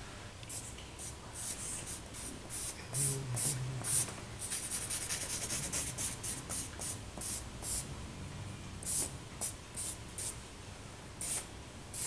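Charcoal stick scratching and rubbing on drawing paper in many short, quick strokes, with brief pauses between runs.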